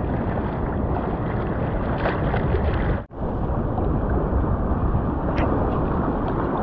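Surf washing onto the beach, with wind buffeting the microphone. The sound cuts out for a moment about halfway through.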